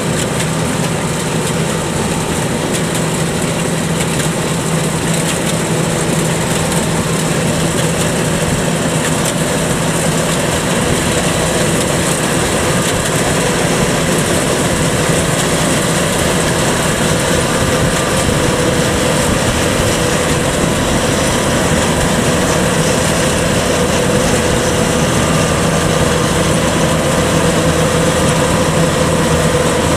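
Kubota DC-105X rice combine harvester running steadily under load as it cuts and threshes rice, its diesel engine and threshing machinery making a constant hum that grows slightly louder toward the end.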